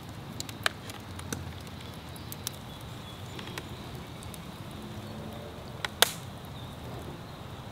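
Wood fire crackling: scattered sharp pops over a low steady background, with one louder crack about six seconds in.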